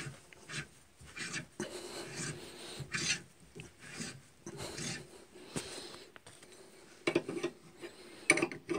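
Hand reamer being turned slowly by a tap wrench inside the new bushings of a KAMAZ transfer-case differential, reaming them to size for the spider gears: irregular metal scraping strokes, with a few sharper clicks near the end.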